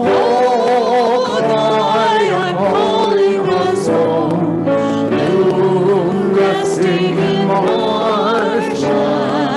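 A hymn sung by several voices, with long held notes and vibrato.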